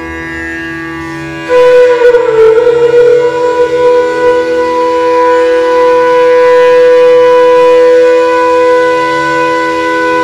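Bansuri, the Indian bamboo flute, improvising in an empty stone water tank. About a second and a half in, a loud note enters with a brief slide in pitch, then settles into one long held note over a steady lower tone.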